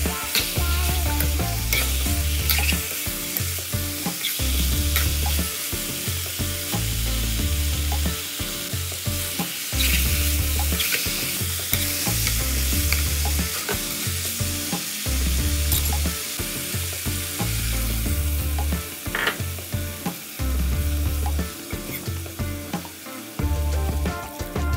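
Tilapia pieces in curry paste sizzling as they are stir-fried in a nonstick wok, with a metal spatula scraping and tapping against the pan now and then.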